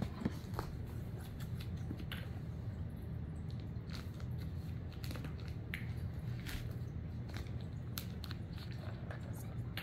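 Scattered light clicks and taps of cats playing with their toys, over a steady low hum.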